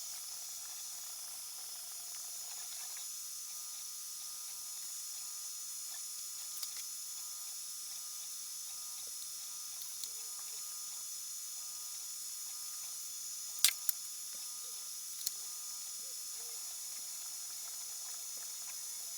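3D printer running: a steady high-pitched whine and hiss from its motors and fans, with faint changing stepper-motor moves and a few light clicks, one sharp click about two-thirds of the way through.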